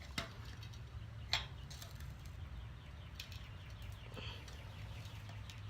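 A few faint sharp clicks of a cassette lockring tool and chain whip being fitted on a bicycle cassette, the clearest about a second in, over a low steady hum.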